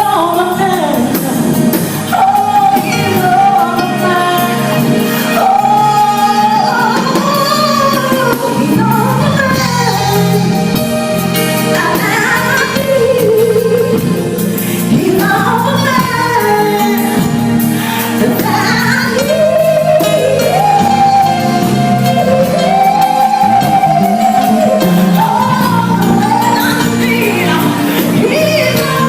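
A singer performing a gospel-style song over live band accompaniment, the voice carrying a bending melody line over steady low notes.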